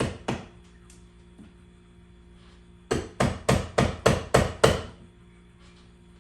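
Hammering: two knocks, then a quick run of seven hammer blows, about four a second, over a steady low hum.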